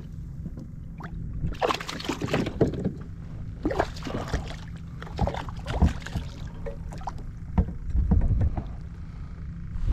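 Water splashing and knocking around a fishing kayak in several irregular bursts as a trout is fought at the side, over a steady low rumble of wind on the microphone.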